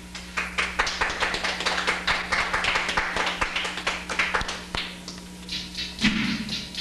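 Scattered hand clapping: a dense, irregular patter of claps. About six seconds in, a low thumping beat begins, roughly once a second.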